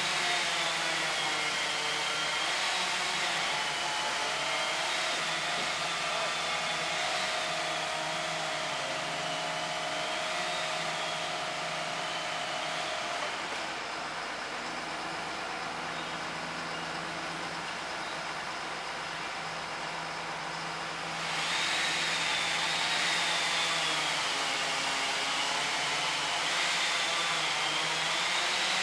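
Powered tree-work machinery running steadily with a hissing rush and a high, wavering whine. The whine stops for about seven seconds in the middle, the sound drops a little, and then it comes back abruptly.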